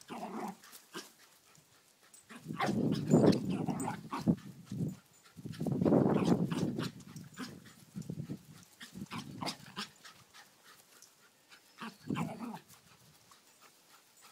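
Lakeland Terrier making low, rough vocal sounds in bursts as it runs, the two longest and loudest a few seconds in and around the middle, with shorter ones later.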